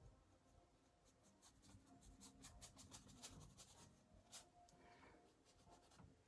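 Faint paintbrush strokes and dabs on a painting: a quick run of short, dry taps and scrapes, thickest in the middle stretch and thinning out near the end.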